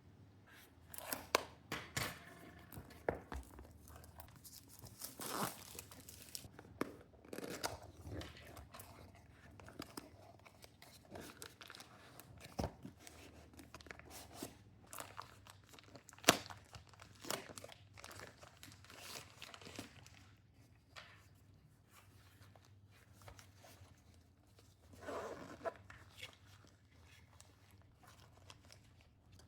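Product packaging being opened by hand: irregular tearing, crinkling and rustling with scattered clicks, and one sharp snap about sixteen seconds in.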